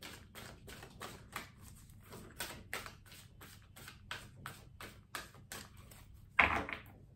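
Tarot deck being shuffled by hand, the cards snapping together in a steady run of short clicks, about three or four a second. A louder slap of cards comes near the end.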